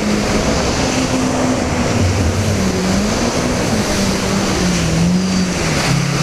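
Personal watercraft engine running at a steady cruise, its pitch wavering gently up and down, over a constant rush of water and wind.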